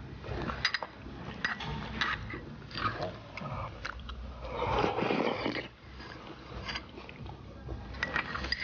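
People eating thick millet porridge (hezi fan) from porcelain spoons: scattered sharp clicks and lip smacks, and a longer, louder slurping stretch about five seconds in.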